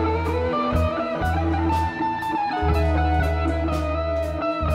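Live band playing a slow instrumental passage from a soundboard mix: an electric guitar lead line over long held bass notes, keyboards and evenly spaced cymbal strokes.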